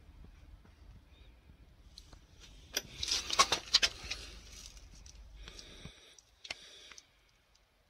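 Rustling, scraping and clicking of a hand-held phone being moved about under the car, loudest in a burst of clicks around three to four seconds in, over a faint low rumble that stops about six seconds in.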